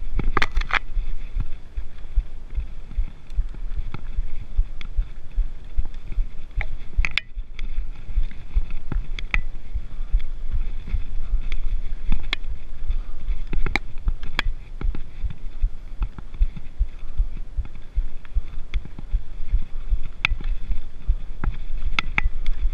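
Mountain bike riding down rocky dirt singletrack: a steady low rumble with frequent sharp clacks and rattles as the bike hits rocks and roots.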